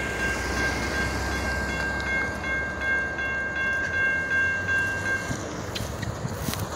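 Railroad crossing bell ringing steadily over a low rumble, then stopping about five seconds in as the crossing gate arms finish rising. A few sharp clicks follow near the end.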